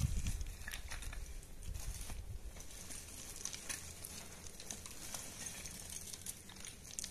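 Scattered light clicks and rustling of loose stones and dry brush on a scree slope, with a low wind rumble on the microphone in the first two seconds.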